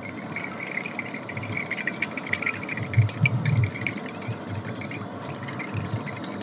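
A fork whisking an egg in a stainless steel bowl: a fast, uneven run of metallic clicks and scrapes against the ringing bowl. There are a few low bumps about three seconds in.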